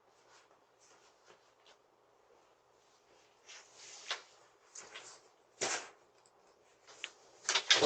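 Scattered clicks, knocks and rustling, louder from about three seconds in, with one sharp knock a little past halfway and a quick cluster of knocks near the end.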